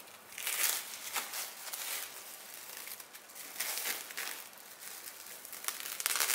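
Crinkly wrapping material being handled, in several bouts of crinkling and rustling.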